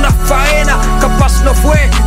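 Hip hop track with a rapped vocal over deep bass notes that repeatedly slide downward.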